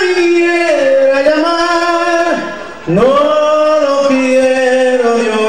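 Man singing into a microphone in Spanish, holding long drawn-out notes, with a short break for breath about two and a half seconds in.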